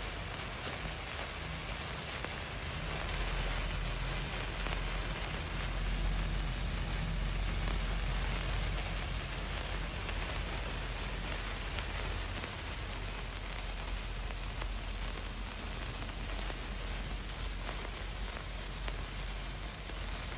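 Sparkler sticks burning with a steady hissing crackle of sparks, over a low rumble.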